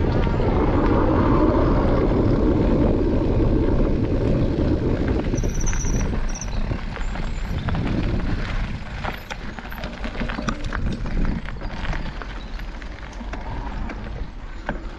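Mountain bike riding on a gravel trail: steady rumble of knobbly tyres rolling over grit, louder for the first half, then quieter with many small clicks and rattles from stones and the bike.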